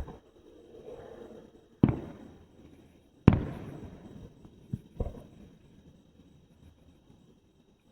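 Fireworks going off: a series of sharp booms, each trailing away, about five in the first five seconds, the loudest about three seconds in.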